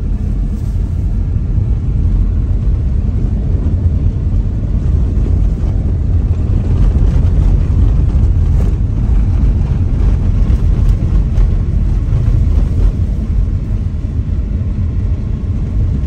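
Steady low rumble of a car driving on an unpaved dirt road, engine and tyre noise heard from inside the cabin, a little louder in the middle.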